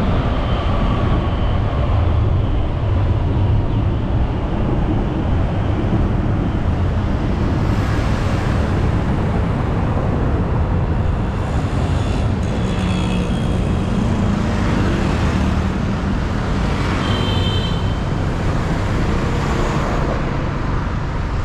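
Motorcycle taxi running through city traffic: a steady rumble of engine, tyres and surrounding vehicles. Brief high-pitched tones come twice in the second half.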